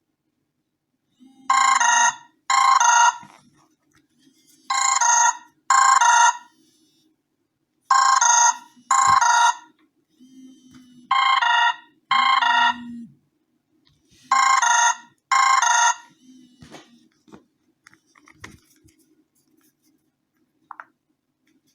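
BQ-5702 Spring smartphone's incoming-call ringtone, ringing in pairs of short trilling rings like a classic telephone: five pairs about three seconds apart, stopping about sixteen seconds in. A few faint clicks follow.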